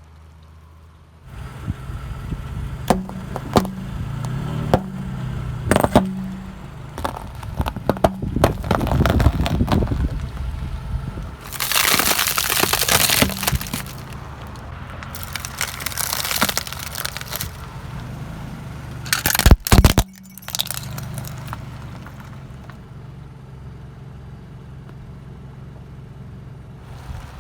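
Car tyre rolling slowly over crunchy objects and crushing them, with the engine running low and steady underneath. Scattered sharp cracks come first, then two long stretches of loud crackling crunching, and one very loud sharp crack about two thirds of the way through.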